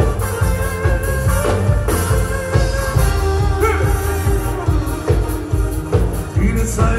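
A band playing an instrumental passage with a steady beat, with no singing.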